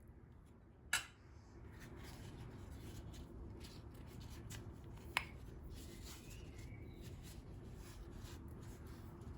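Quiet kitchen handling sounds: two sharp clicks of something being set down or tapped, about a second in and again about five seconds in, over a low steady hum.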